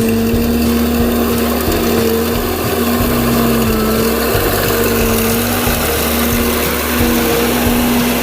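Rice combine harvester running steadily, its engine giving a constant drone.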